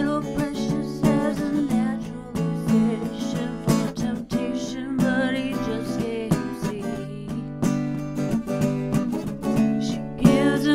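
Acoustic guitar strumming chords as song accompaniment, in an instrumental break between sung lines.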